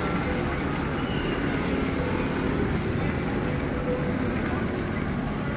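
Wind buffeting the microphone over a steady rumble of road traffic, with motorbikes and cars passing on the wet expressway.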